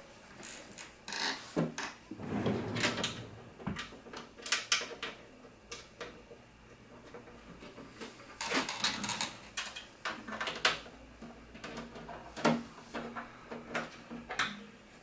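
Steel side panel of a desktop PC tower being slid back into place and fastened shut: a run of irregular metallic clicks, scrapes and knocks.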